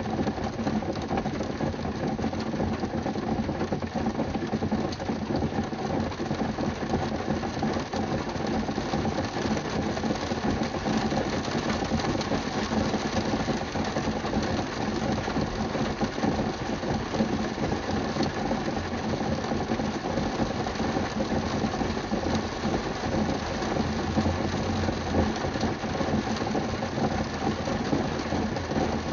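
Heavy rain drumming steadily on a car's roof and windows, heard from inside the car as a dense, even patter.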